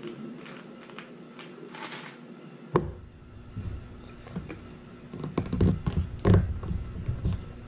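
Plastic tubes of Plus-Plus pieces being handled on a table: faint light clicking at first, a sharp knock almost three seconds in, then a run of thuds and taps, loudest just after six seconds.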